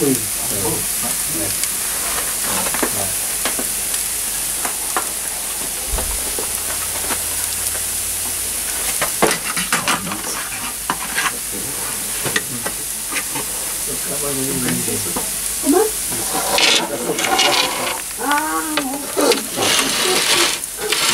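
Socca batter sizzling in its metal pan in a wood-fired oven, a steady hiss with scattered crackles from the embers. Around ten seconds in, a few sharp clicks and knocks come as an iron hook handles the pan.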